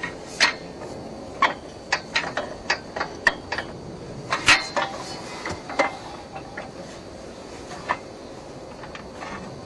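Irregular sharp metal clinks and knocks from handling the tools and parts of a simple water-well drilling rig. About a dozen come close together in the first six seconds, the loudest about halfway through, then one more near the end, over a steady background hiss.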